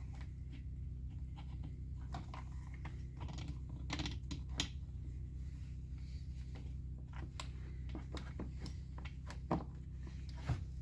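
Irregular small clicks and taps, as of small carburetor parts and tools being handled during a chainsaw carburetor rebuild, over a steady low hum.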